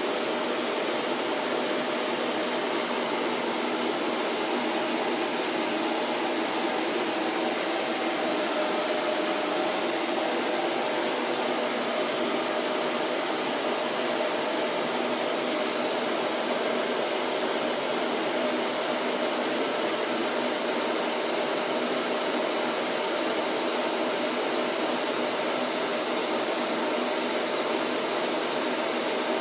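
Vacuum cleaner running steadily: an even, unbroken whooshing hum with a faint steady whine in it, no change in speed or pitch.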